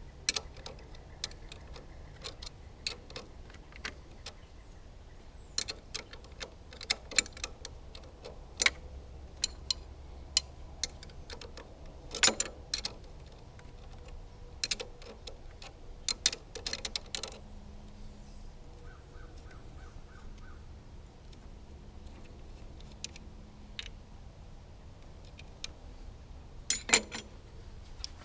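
Hand tools clicking and clinking on metal in irregular, scattered strikes, with a quick cluster near the end.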